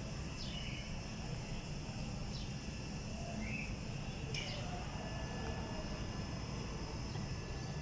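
Garden ambience: a steady chirring of insects with a few short, falling bird chirps, over a low steady rumble.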